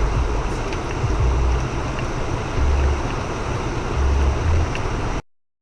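Steady driving noise inside a Great Wall Hover SUV: engine, tyres and rain blending into an even rush, with low rumbles swelling now and then. The sound cuts off abruptly about five seconds in.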